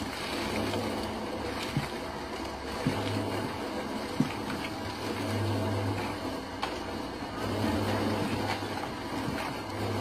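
A small engine running steadily, its hum swelling and easing every second or two, with three sharp knocks in the first half.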